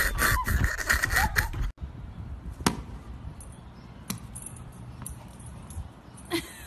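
Loud rumbling outdoor noise that stops abruptly about a second and a half in, followed by a tennis ball bouncing on asphalt a few times, each bounce a sharp tap, as a dog plays with it.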